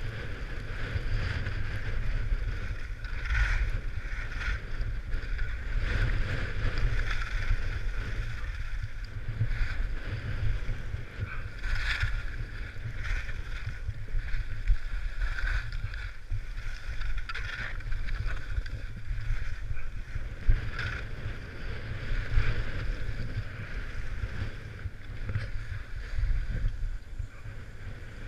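Wind rumbling across the microphone of a helmet camera on a downhill run, over a steady hiss of sliding on packed snow with a brief scrape of edges on the snow every second or two as the rider turns.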